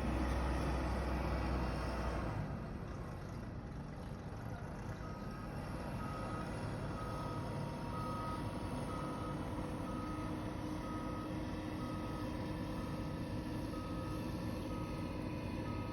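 A vehicle's reversing alarm beeping about once a second, starting about five seconds in, over steady engine and traffic noise; a heavier low engine rumble fades in the first couple of seconds.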